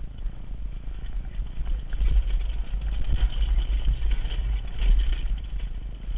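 Wind buffeting a helmet-mounted camera's microphone as a mountain bike descends a rocky dirt trail, with the bike rattling and knocking over the rough ground. The bike is being ridden on a flat tyre.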